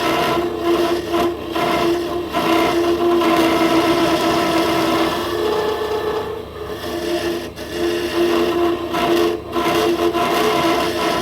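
Wood lathe spinning a plum-wood pen blank while it is being worked: a steady whine with a rasping, scraping noise over it, briefly letting up several times.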